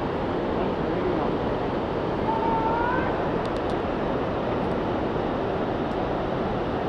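Steady rushing noise of the whitewater river rapids below, mixed with wind on the microphone.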